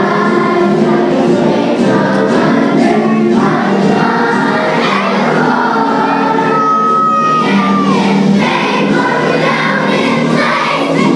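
Large group of elementary-school children singing a song together as a choir.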